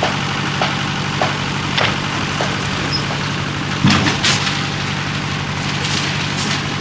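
Concrete mixer's engine running steadily, with regular short knocks a bit under twice a second and a louder clatter about four seconds in.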